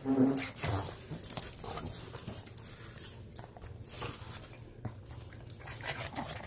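Small dogs waiting for treats: a short whine near the start, then light clicks and taps of paws and nails on a tile floor as the treats are handed out.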